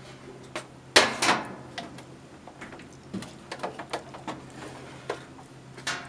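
Sears Best Corrector electric typewriter's mechanism clacking: a loud clack about a second in, then scattered lighter clicks and knocks. A steady low hum runs underneath.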